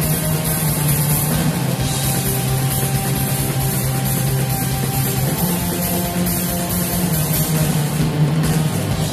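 Post-black-metal band playing live: distorted guitars hold long low chords that change every couple of seconds, over drums and a steady wash of cymbals.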